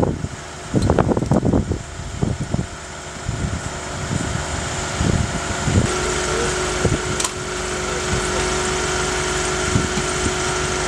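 Steady machine hum from parked ambulances, with low gusts of wind on the microphone in the first couple of seconds. About six seconds in, a steady whine joins the hum and holds.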